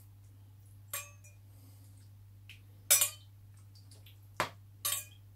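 Metal spoon clinking against a small stainless steel cup, four short ringing clinks, the second one, near the middle, the loudest.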